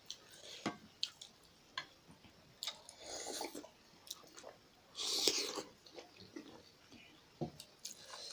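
Close-miked chewing and wet mouth sounds of eating juicy momo dumplings in soupy jhol, with scattered small clicks. A louder, longer burst of noise comes about five seconds in.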